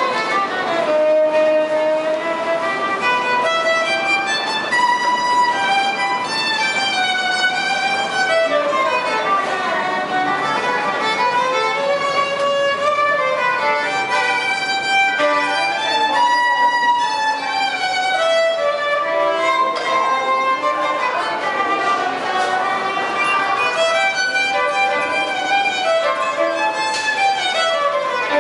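Solo violin playing a lively melody, with quick runs of notes climbing and falling without a break.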